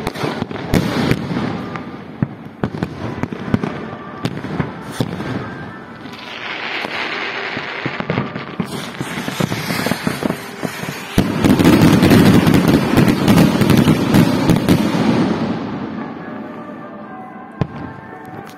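Fireworks going off: a rapid run of bangs and crackling pops, with a louder, denser spell of crackling about eleven seconds in that dies away near the end.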